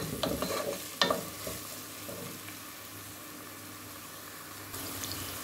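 Chopped onions sizzling in olive oil in a nonstick pot. A wooden spoon stirs them and knocks against the pan twice in the first second or so, then a steady sizzle is left.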